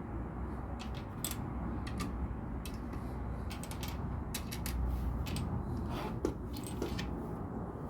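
Plastic LEGO mechanism of the Minifigure Vending Machine set clicking, a run of irregularly spaced sharp clicks over a low background rumble.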